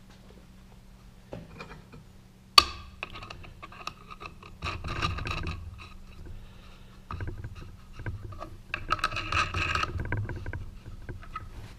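Steel nuts being threaded by hand onto the steel studs that clamp a UHMW plastic blank to a rotary table. There is a sharp click about two and a half seconds in, then several spells of metallic scraping and rattling as the nuts are spun down.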